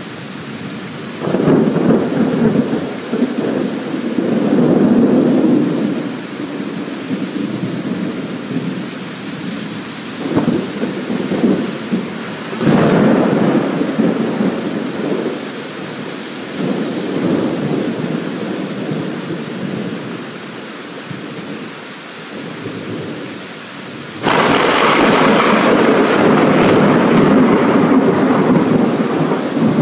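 Thunder rolling through a storm over steady rain: several long rumbles swell and fade, one opens with a sharp crack about 13 seconds in, and a louder, closer peal breaks in suddenly near the end and keeps going.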